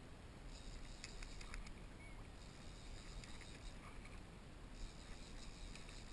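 Faint water lapping against a plastic kayak hull under a low wind rumble, with scattered small clicks.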